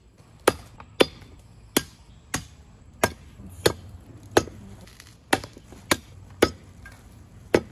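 A large knife chopping meat on the bone against a wooden log chopping block: a steady run of about eleven sharp blows, roughly one every two-thirds of a second.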